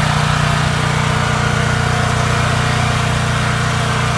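Husky 4550-watt generator engine running at a steady, even speed.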